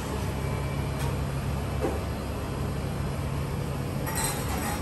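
Steady low mechanical hum over a faint hiss, with a brief clatter about four seconds in.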